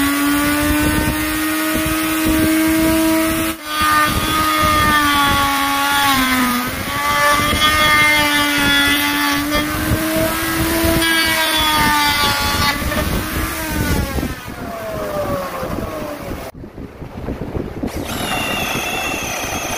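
Handheld electric plunge router running at high speed, its bit cutting into wood; the whine sags and recovers in pitch as the cut loads it, then winds down to a stop when switched off about three quarters of the way through. Near the end a cordless drill whirs, boring a hole in the wooden top.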